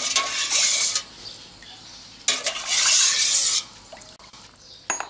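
Metal ladle stirring and scooping warm pickling brine in a stainless steel pot. The brine splashes and pours back from the ladle in two spells of about a second each, with a sharp metal clink near the end.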